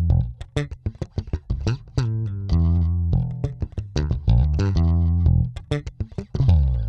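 Electric bass played through a Hartke TX300 bass amplifier with its Shape EQ circuit switched on and set to full: a bass line of held low notes broken up by many quick, muted percussive notes between them.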